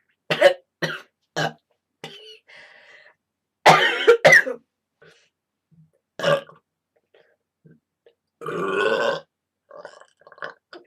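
A girl burping over and over: three short burps in quick succession, a louder burp about four seconds in, another at about six seconds, and a longer drawn-out burp near the end.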